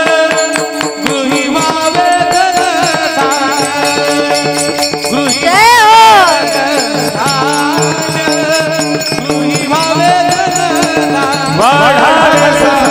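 A male singer sings a Warkari kirtan devotional song into a microphone in a sliding melodic line, with small hand cymbals (taal) keeping a steady beat. His voice rises to a loud high note and falls back about six seconds in.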